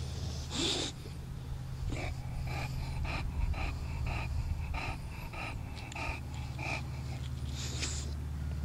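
English bulldog panting with open mouth: quick, rhythmic breaths about two a second, with a louder, noisy breath about a second in and another near the end.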